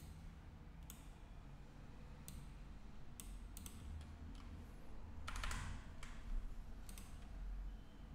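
Sparse clicking of a computer keyboard and mouse, about a dozen separate clicks with a quick run of several taps about five seconds in, over a faint low hum.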